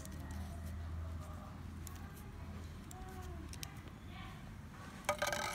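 Light clicks and taps from plastic printer parts being handled as a fuser film sleeve is fitted, over a low steady hum. A short pitched squeak-like sound near the end is the loudest event.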